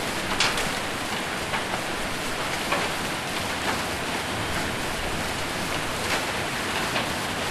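Heavy rain mixed with hail drumming steadily on a roof. Now and then a single sharp impact stands out, about six in all.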